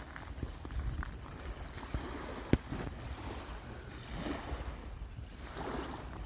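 Wind rumbling on the microphone over gentle surf washing on the shore, with a few sharp clicks, the loudest about two and a half seconds in.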